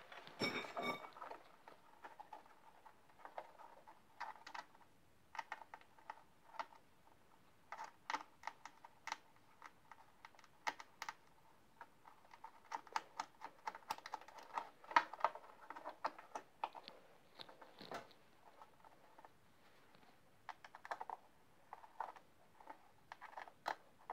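Faint, irregular small clicks and taps of a screw and hand tools being worked at a moped's leg-shield panel, coming thicker in the middle.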